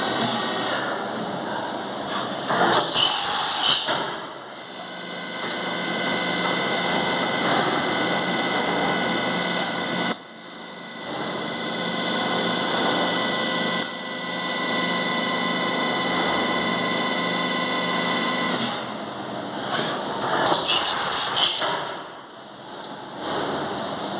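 Doosan DNM400 vertical machining centre running: a steady machine whine made of several tones, broken by a louder noisy burst about three seconds in and again near the end.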